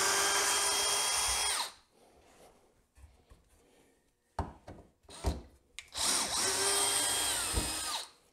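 Power drill backing screws out of wooden benchwork legs: two runs of about two seconds each, the motor's whine rising as it starts and dropping away as it stops, with a couple of short knocks between them.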